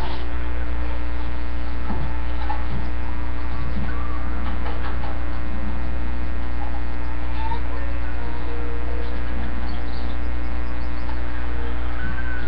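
Steady, loud electrical mains hum in the audio feed, unchanging throughout.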